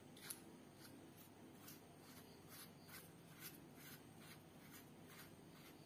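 Faint scratchy clicks, about two a second, as the threaded battery cap of a JBL CSLM20B lavalier microphone is screwed back onto its body by hand.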